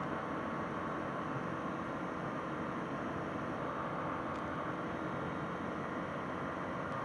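Steady drone and hiss inside the cockpit of a Bristell light sport aircraft in flight, its Rotax 912 four-cylinder engine running at climb power, heard muffled through the headset intercom.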